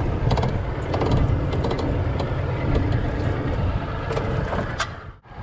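Steady low rumble of a boat's motor running, mixed with wind on the microphone, with a few light clicks and knocks. The sound drops out sharply for a moment near the end.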